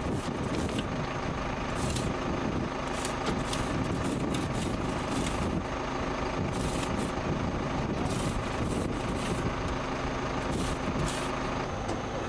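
Heavy diesel engine of a truck or work machine running steadily, with scattered short sharp clicks or hisses over it.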